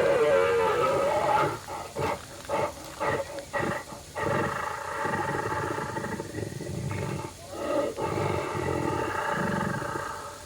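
Animatronic dinosaur's recorded roar: a long wavering roar, then a quick run of short grunts, then two longer drawn-out roars.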